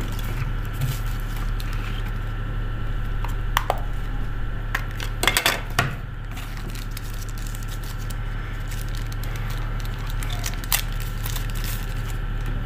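Small plastic clicks and taps from handling a keypad mobile phone as its back cover is pried off and the battery is readied, with a cluster of sharp clicks about five seconds in, over a steady background hum.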